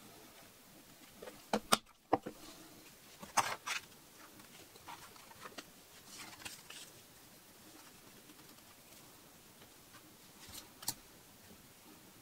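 Sharp clicks and knocks of leather-working tools and leather pieces being handled on a cutting board, the loudest in a cluster in the first four seconds, softer ticks after, and one more click near the end.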